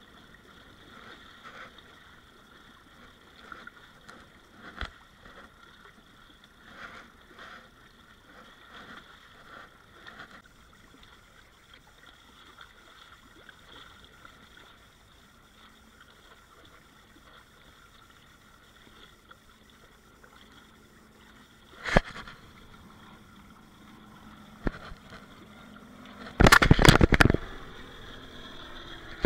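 Water rushing and splashing past the hulls of a small inflatable sailing catamaran under way, with a steady low hiss. Near the end come a sharp knock, then a loud rattling clatter of rapid knocks lasting about a second.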